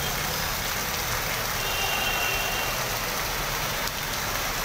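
Steady hiss of heavy rain and floodwater running across a road, with a brief faint high beep about two seconds in.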